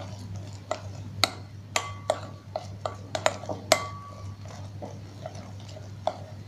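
Metal spoon stirring thick flour batter in a glass bowl, clinking against the bowl's side many times at an irregular pace, a few strikes ringing briefly. A steady low hum runs underneath.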